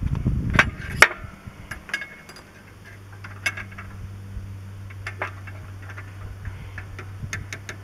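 Light metallic clicks and taps of hand tools and small steel parts on a tractor clutch pressure plate as the spring clips and lever pins are worked out, the sharpest click about a second in.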